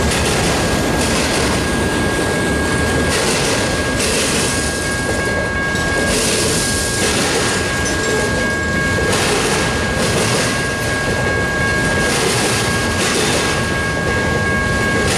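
Freight train's autorack cars rolling past: a steady rumble and clatter of steel wheels on rail, with a hiss that swells and fades every second or two. A thin steady high ringing tone runs over it.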